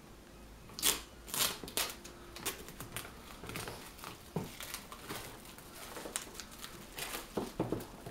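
Cardboard retail box and its wrapping crinkling and crackling as fingers pick at the sealed top flap, a string of irregular sharp crackles with the loudest about a second in. Near the end the box is handled and turned over on the table.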